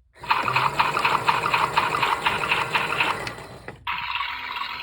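Small battery-powered washing machine running, its motor humming under a rapid, even rattling click of about six or seven a second as the drum turns. The sound drops out briefly near the end.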